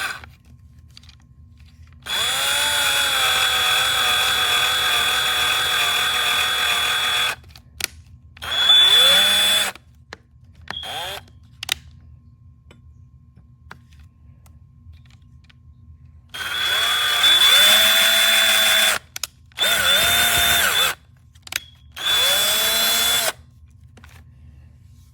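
Cordless drill boring a hole: one long run of about five seconds, its motor whine rising as it spins up and then holding steady, followed by several shorter bursts of one to three seconds, each starting with a rising whine.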